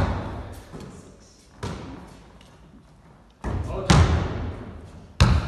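A basketball thudding against the floor and the hoop several times, each hit ringing around a large bare hall: one at the start, another about a second and a half in, a loud double hit near four seconds, and one more near the end.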